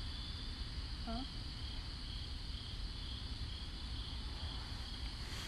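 Crickets chirping in a steady, evenly pulsing high trill over a low rumble, with a brief vocal murmur about a second in.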